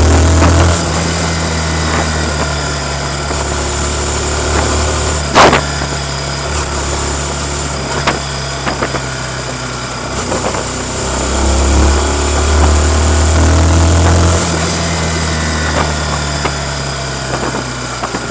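Stock Yamaha MT-15's 155 cc single-cylinder four-stroke engine running while riding, with the engine note swelling louder for a few seconds about twelve seconds in. A single sharp click sounds about five seconds in.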